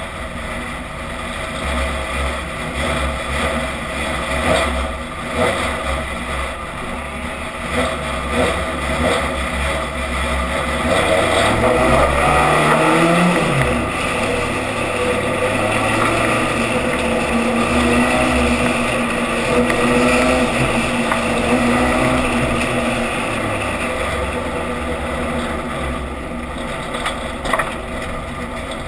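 Stock rod race car's engine heard from a camera on its bonnet: running at low revs, then rising in pitch as it accelerates about eleven seconds in, and holding steady higher revs on the track.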